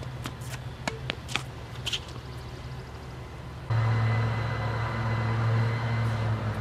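Tennis ball being struck and bouncing on a hard court, a few sharp pops in the first two seconds. About three and a half seconds in, a steady low engine-like hum starts suddenly and becomes the loudest sound.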